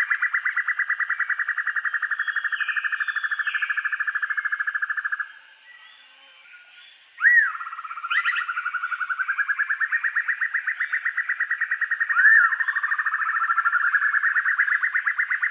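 Banded broadbill (sempur-hujan rimba) calling: a long, very fast trill that rises and then holds steady for about five seconds before breaking off. A couple of short, sharp upslurred notes follow, then another long fast trill begins and carries on to the end.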